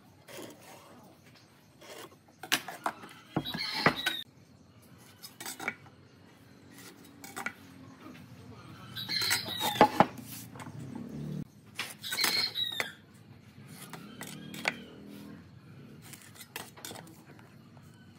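Steel speed square clinking and tapping on wooden beams as lines are marked out, with scattered knocks of the timber being handled on the bench. The loudest metallic clatters come about 4, 10 and 12 seconds in.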